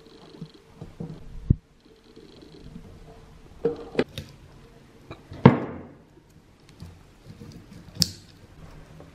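Handling noise from a small fan-motor stator being rewound: knocks and clicks as the steel stator core and its copper coils are turned and set against the wooden bench, with light rustling of magnet wire. About five sharp knocks, the loudest about halfway through.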